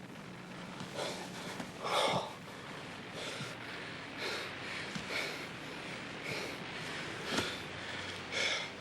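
A couple breathing hard with gasps and sighs during lovemaking: irregular breaths every second or so, the loudest gasp about two seconds in.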